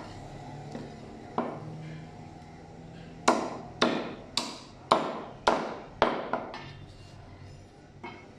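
Meat cleaver chopping mutton on a wooden log chopping block. One light chop comes first, then a quick run of about six sharp chops roughly half a second apart, and the strokes trail off after that.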